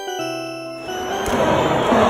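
A short chime-like jingle of background music rings out and fades. About a second in, the noise of a packed baseball stadium crowd swells in and grows louder.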